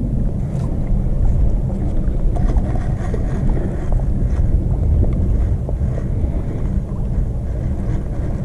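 Wind buffeting the microphone: a loud, steady, low rushing noise that swells and eases.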